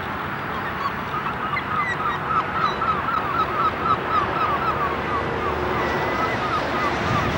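A flock of geese honking, many short calls overlapping in a rapid run over steady background noise.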